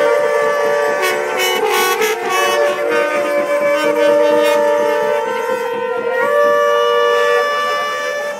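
Wind instruments sounding long held notes, several at once, the pitches shifting every second or two with a couple of short upward slides.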